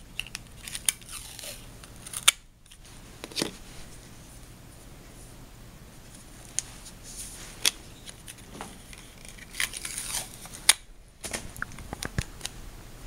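Adhesive medical tape pulled from a plastic dispenser and torn off, with scattered short clicks and crinkles as the tape and bandage are handled.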